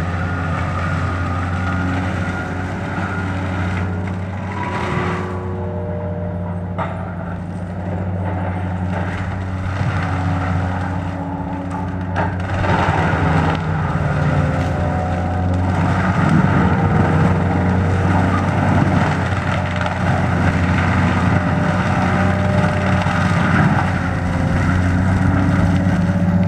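Wheeled forestry mulcher's diesel engine running steadily while its front drum mulcher head grinds brush, with scattered crackles of wood. It grows louder as the machine comes closer.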